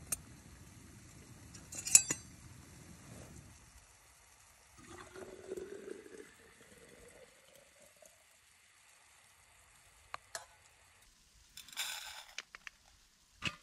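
A canister gas stove's low burner rumble, then a sharp metal clink of the cooking pot about two seconds in, the loudest sound. Hot water is poured from the pot into an insulated flask, its pitch rising as the flask fills. A few light clicks and a brief rustle come near the end.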